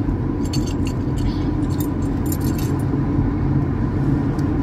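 Steady low rumble of a car's cabin, with light metallic jingling and clicks in the first half as metal earrings on cardboard cards are handled.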